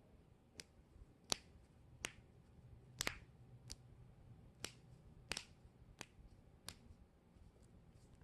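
Joints being cracked: a run of about ten sharp pops, roughly one every two-thirds of a second, with a louder one about a second in and another right at the end.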